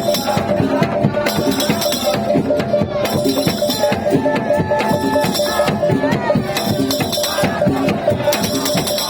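Madurese daul (tong-tong) percussion ensemble playing: dense, fast drumming and struck bamboo slit drums with jingling cymbals, over a steady held tone and a wavering melody line.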